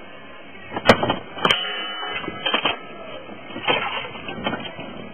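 Sharp knocks and clattering thumps of hands and gear being handled while ice fishing: two loud cracks about one and one and a half seconds in, then a few scattered bumps.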